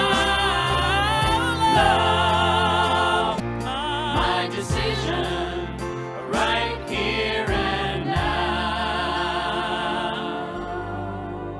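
Gospel-style song sung by a choir with instrumental backing, the voices wavering with vibrato. It eases a little in loudness toward the end.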